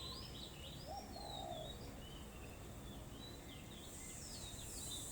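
Small birds chirping, with short high rising and falling notes scattered through, and one lower call about a second in. A soft hiss comes up near the end.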